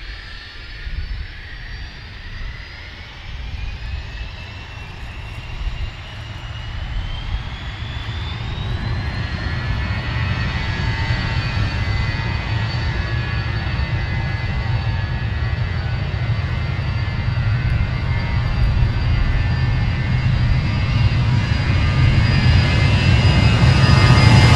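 The four Honeywell LF507 turbofans of an Avro RJ100 spooling up to take-off power. A whine rises in pitch over the first nine seconds or so and then holds steady, while the engine noise grows steadily louder as the jet begins its take-off roll toward the listener.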